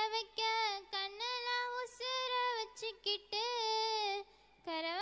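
A girl singing a Tamil folk song solo and unaccompanied into a microphone, with long held notes bent by ornamented turns and short breaths between phrases; she pauses briefly a little after four seconds in.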